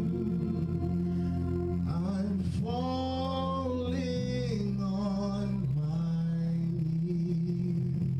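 Live worship music: held organ-type keyboard chords with a man singing a long, bending phrase into a microphone from about two seconds in to about six.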